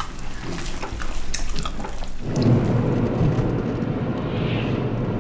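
A few light clicks and taps, then, a bit over two seconds in, a steady low rumble of road and engine noise heard from inside a moving car on a motorway.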